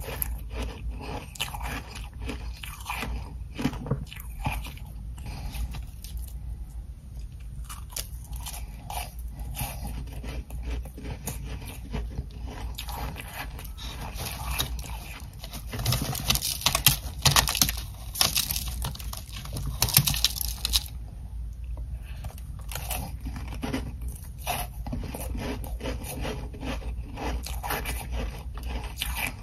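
Ice chunks coated in soft humidifier frost being bitten and chewed: a steady run of crisp crunches, loudest and densest a little past halfway.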